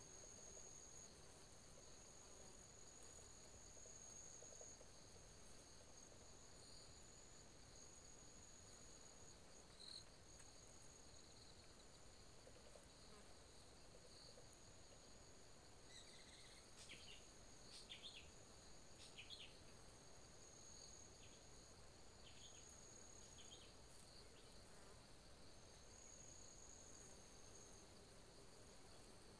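Faint, steady, high-pitched insect chorus from the forest, with a few brief falling chirps about halfway through.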